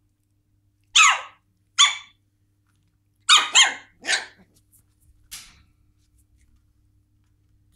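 West Highland White Terrier puppy yipping: short, high-pitched yips that drop in pitch. There are two about a second apart, then three in quick succession around three and a half seconds in, and a fainter one near five seconds.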